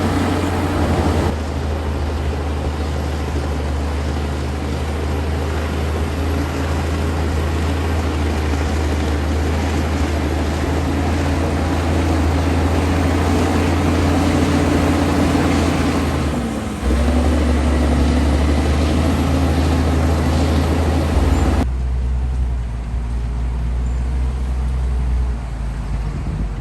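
Komatsu D60P bulldozer's diesel engine running as the dozer works, a steady low drone that changes pitch abruptly a few times.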